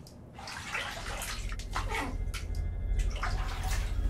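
Bathwater sloshing and dripping as a person shifts in a filled bathtub, growing louder, over a low hum that also builds.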